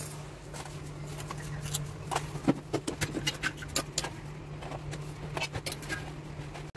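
Irregular light clicks and clatters of Oreo biscuits being handled, twisted apart and dropped into a stainless-steel mixer-grinder jar.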